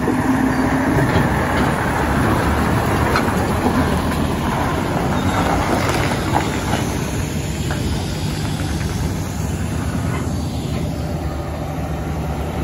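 Mitsubishi Fuso V10 heavy truck's diesel engine running as it pulls a loaded flatbed trailer out onto the road and past, with tyre and road noise; louder in the first few seconds, easing off after.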